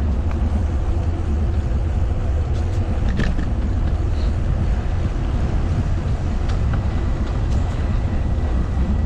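Wind buffeting the microphone of a moving bicycle as a steady, heavy low rumble, with faint riding noise and a few small clicks about three seconds in.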